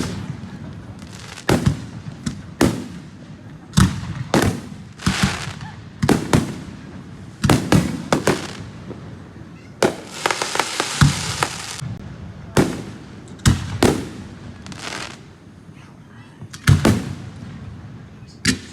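Fireworks going off: close to twenty sharp bangs at uneven spacing, with a dense crackling burst about ten seconds in.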